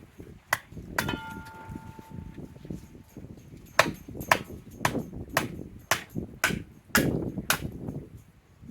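Back of an axe hammering wood down onto a kindling cracker's blade, splitting kindling: two separate knocks, the second with a short metallic ring, then a steady run of about eight strikes, roughly two a second.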